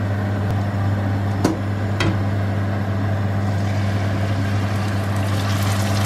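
Steady low hum with two sharp knocks about one and a half and two seconds in, as cooking oil is poured into a frying pan and blended pepper is tipped from a stainless saucepan into it and scraped out with a spoon; a light hiss rises in the second half as the pepper meets the oil.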